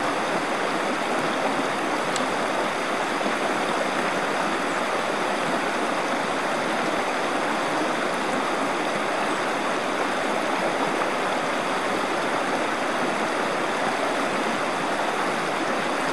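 Colorado River water rushing steadily over a shallow gravel riffle: a constant, even rush of fast-moving water.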